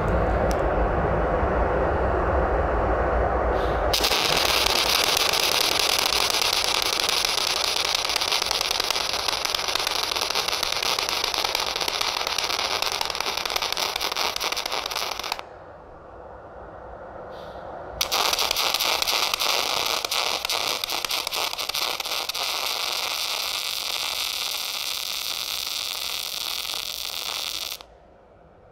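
MAG welding arc crackling and spattering as a steel fillet seam is laid, shielded with argon while CO2 is mixed in little by little from pure argon. The arc runs for about fifteen seconds, stops for about two and a half seconds, then runs again until it cuts off just before the end.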